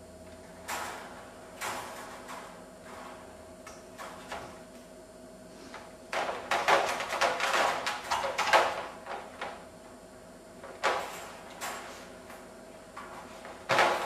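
Wire dog crate rattling and scraping as a puppy outside and a dog inside paw and nose at the bars: a few short rattles, a busier clatter of about two and a half seconds near the middle, and one sharp rattle near the end.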